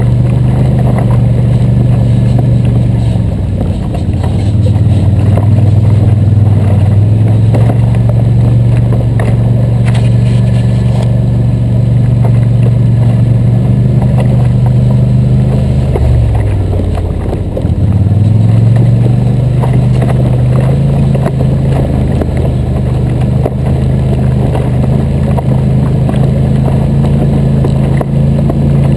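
Loud ATV engine running under way at a fairly steady pitch. About sixteen seconds in it eases off and the pitch drops low, then it picks back up about two seconds later.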